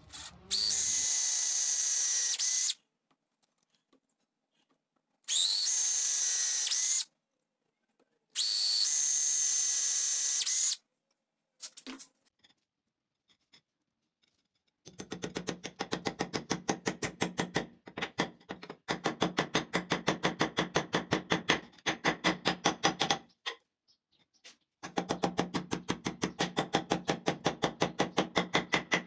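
A power tool run in three short bursts of about two seconds each, the first starting with a slight rise in pitch. From about halfway, a fast rattle of evenly repeated strikes, about ten a second, comes in runs of a few seconds with short pauses between them.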